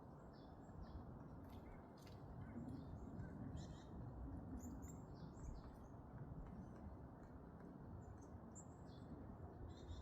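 Varied tit giving short, thin, high call notes scattered through, faint over a low steady background rumble.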